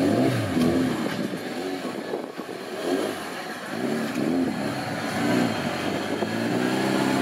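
Suzuki Samurai 4x4's engine revving up and down in repeated blips as it crawls over a dirt mound, then held at a steady higher rev near the end.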